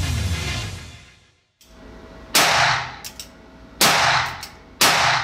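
Rock intro music fades out within the first second. Then three shots from an Uberti 1875 No. 3 top-break revolver chambered in .38 Special ring out, each echoing off the walls of an indoor range. The first two are about a second and a half apart and the next follows a second later, with faint clicks between them.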